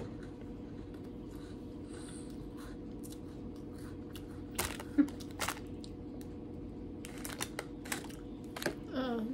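Scattered sharp crunches and crackles over a steady low hum, as Prince chocolate-filled sandwich biscuits are bitten and their packet handled. The loudest crunch comes about five seconds in.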